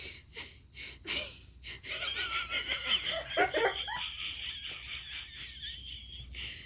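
A person laughing hard and breathlessly, with wheezing: a few short separate bursts at first, then a long unbroken run of strained, high laughter that slowly fades.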